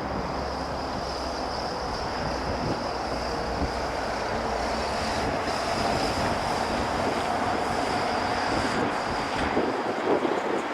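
Boeing 777-200LR's GE90 turbofan engines running at taxi power: a steady rushing noise with a high whine, its low rumble dropping away near the end.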